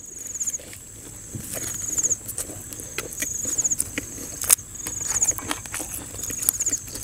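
Crisp rustling, snapping and clicking of fresh herb leaves being picked and torn by hand, with one sharper snap about halfway through. Behind it a steady high insect whine and a short high chirping trill that repeats about every second and a half.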